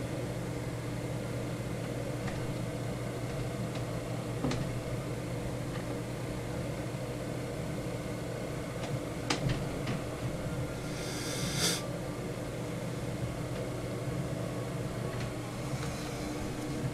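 A steady low mechanical hum with a few faint clicks, and a short rustle about eleven seconds in.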